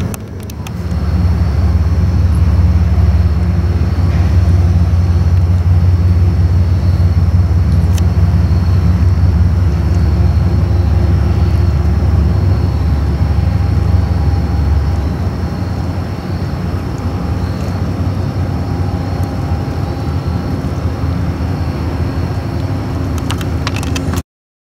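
A Metro-North push-pull passenger train with a P32AC-DM diesel locomotive going past: a steady low rumble of engine and wheels on the rails that swells about a second in and eases off two-thirds of the way through, with a faint thin whine in the second half. It cuts off just before the end.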